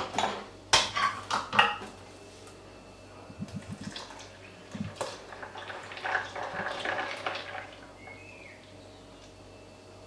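A metal tin of Nourishment drink is handled and opened with a few sharp metallic clicks in the first two seconds. About halfway through, the thick milky drink pours from the can into a plastic blender jug.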